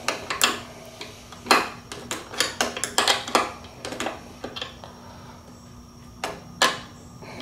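Hand tools clinking on a bolt as it is tightened: a steel wrench and socket ratchet tapping and clicking against the bolt and the mower's metal belt guard. The sharp metallic clicks come irregularly, busiest in the first three and a half seconds, with a couple more shortly before the end.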